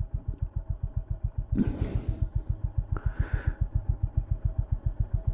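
Honda CB350 H'ness single-cylinder engine running at low revs, an even thumping of about ten beats a second. There are two brief rushes of noise, about one and a half seconds in and again at three seconds.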